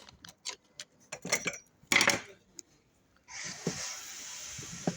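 Metal parts of an automatic transmission clicking and clinking as the valve body is worked loose and lifted out, with one louder metallic clank about two seconds in. A steady hiss starts just after three seconds.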